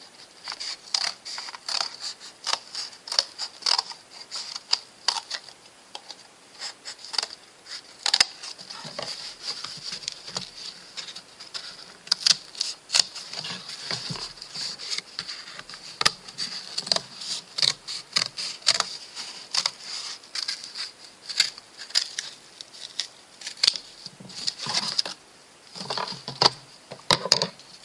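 Corrugated cardboard being cut out by hand with a blade: a steady run of short, irregular scraping and crunching cuts.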